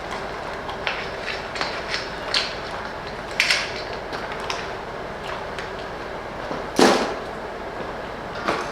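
Scattered light clicks and knocks of hard objects being handled, over a steady rushing background noise. One louder knock comes about seven seconds in.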